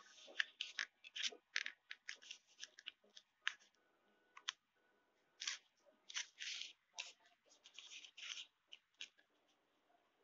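Sheet of paper rustling and crinkling as it is rolled into a tube and pressed by hand: irregular short crackles, with a lull about four seconds in.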